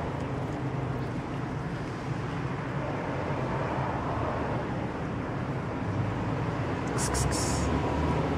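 Steady low rumble of vehicle traffic, with a short burst of crackle about seven seconds in.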